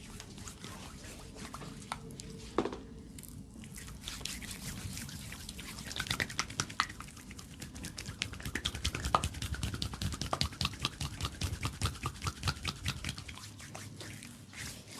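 Massage on oiled skin: hands or a massage tool working the body, making a fast, irregular run of wet slaps and clicks from about four seconds in that fades out near the end. A single louder crack comes about two and a half seconds in.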